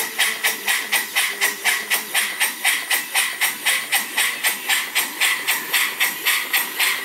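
PM Research 6Ci horizontal model steam engine running on compressed air, its exhaust puffing in a steady, even rhythm of about four chuffs a second with a constant hiss underneath. The engine is still being run in: its piston and rings are a little tight, and its valve timing sits a couple of degrees off.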